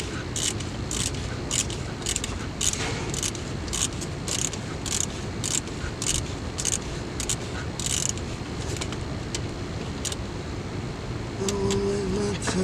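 Ratchet wrench clicking as it is worked back and forth on a compressor mounting bolt, about two strokes a second, stopping near the end.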